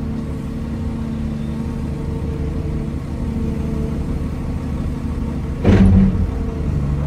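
Excavator's diesel engine running steadily while the operator works the boom and bucket, heard from inside the cab. About six seconds in, a brief, loud burst of noise stands out above the engine.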